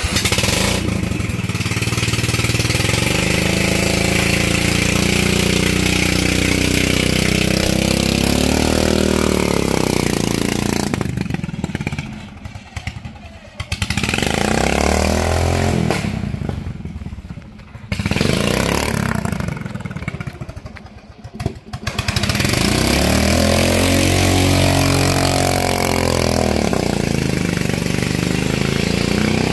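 Ford V8 engine running and being revved up and down several times, the revs sagging briefly in between.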